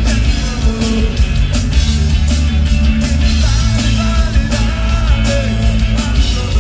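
Live rock band playing loud, driven by a drum kit with steady hits and cymbal crashes over bass and guitars.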